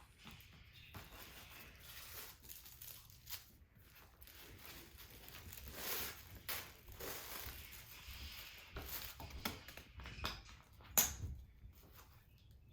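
Packaging crinkling and rustling as a new handbag is handled and unwrapped, in irregular bursts with a sharp crackle near the end.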